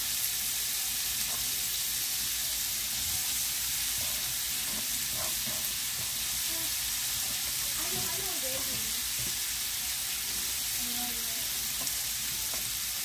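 Rice and vegetables frying in oil in a pan, sizzling steadily.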